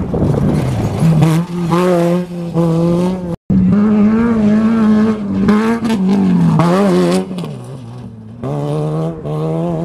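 Off-road race vehicle engines at full throttle, accelerating hard away from the start, with a high, steady engine note that wavers as the vehicles bounce over the terrain. The sound cuts out for a moment about three and a half seconds in. A little before eight seconds the note drops lower and quieter, then comes back up about a second later.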